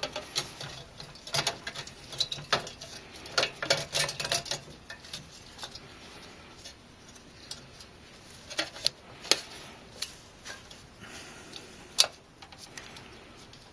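Hand-handling clicks and light metallic taps from fitting parts of a Phanteks PH-TC14PE CPU tower cooler and its fans. A dense run of clicks in the first few seconds, then a few sharp single clicks.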